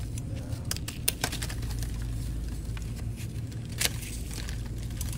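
Steady low hum with a few light clicks, about a second in and again near four seconds, as small cast metal dental parts are handled.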